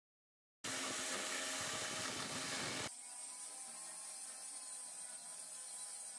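Electric angle grinder with a sanding disc sanding a piece of wood. A loud rough grinding starts about half a second in, then about three seconds in it drops abruptly to a quieter, steady motor whine.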